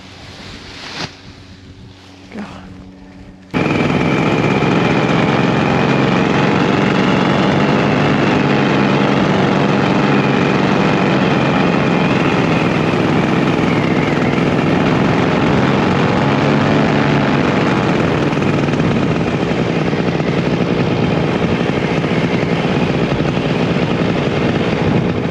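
Paramotor engine and propeller running steadily at high power in flight, cutting in abruptly about three and a half seconds in after a quieter stretch with a few faint brief sounds.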